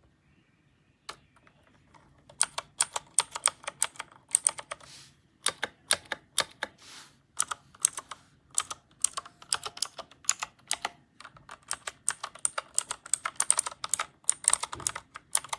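Keys of a MageGee 75% mechanical gaming keyboard being pressed in quick runs of sharp clicks. A single click comes about a second in, the runs start shortly after, and there are brief pauses between them.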